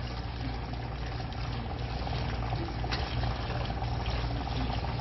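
Sauce bubbling and sizzling steadily in a frying pan as beef and green onions are stirred in it with a spatula, with a few faint ticks.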